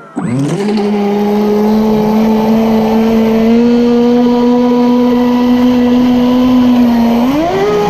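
Proboat Impulse 31 RC boat's brushless electric motor whining as it throttles up from rest just after the start. The pitch rises quickly and then holds steady at speed, over the rush and spray of water off the hull. Near the end the whine climbs higher again as more throttle is given.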